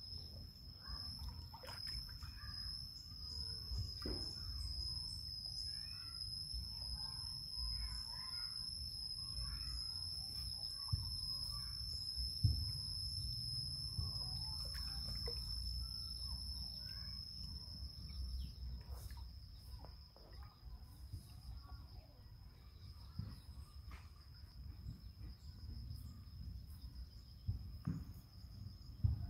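Garden ambience: insects keep up a steady high-pitched drone while birds chirp, the chirping thinning out after about halfway, over a low rumble with a few faint knocks.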